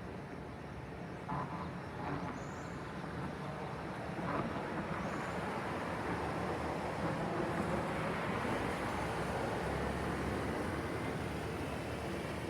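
Steady city traffic noise, the hiss and rumble of road vehicles, growing louder about four seconds in as traffic passes closer, with a few faint short knocks early on.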